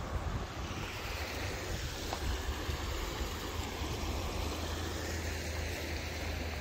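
Wind rumbling on the microphone over a steady rushing hiss of flowing water.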